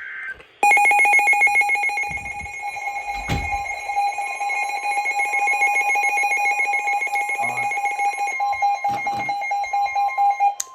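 Emergency Alert System attention tone, a loud, harsh, steady electronic alarm tone that cuts in abruptly about half a second in and holds. It marks the start of a new alert, here a severe thunderstorm warning.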